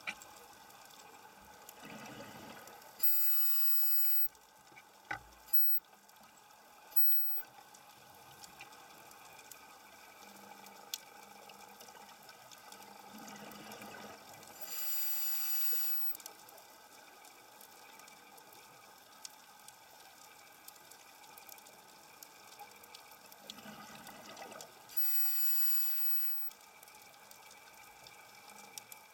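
Scuba diver breathing through a regulator underwater, heard over a steady underwater wash. There are three breaths about ten seconds apart, each a rush of exhaled bubbles followed by a hiss of inhaled air, and a couple of sharp clicks in between.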